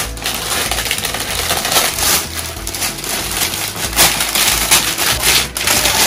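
Metallic foil gift wrap crinkling and crackling as it is pulled open and crumpled by hand, with a few louder crackles about four seconds in.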